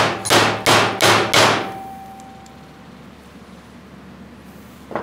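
Mallet striking a steel seal driver five times in quick succession, about three blows a second, driving a new upper seal into the Ford 3000 tractor's power steering column. Each blow clangs, and a faint metallic ring fades out over the next second or so.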